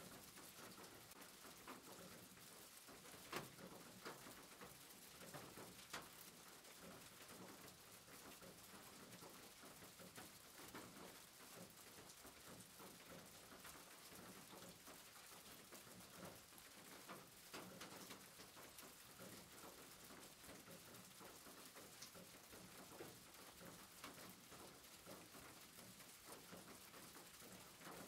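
Rain pattering on a roof: a faint, even hiss of rainfall with scattered drops ticking.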